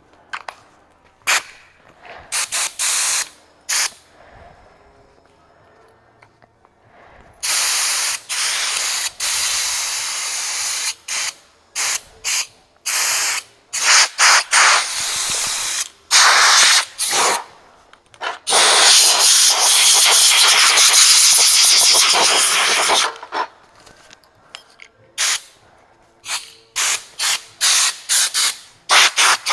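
Power Fist sandblasting gun with a bottle sand feed, its compressed air hissing in many short, abrupt blasts and two longer ones of several seconds. The cheap gun would not work properly.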